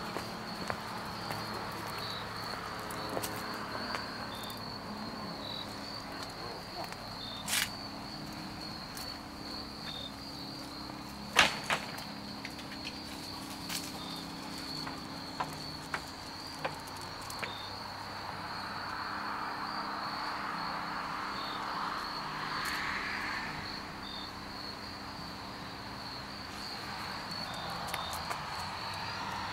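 Crickets chirping: a continuous high trill with slower separate chirps just beneath it. A few sharp clicks cut in, the loudest about eleven seconds in, and a soft rushing swell rises and fades around twenty seconds in.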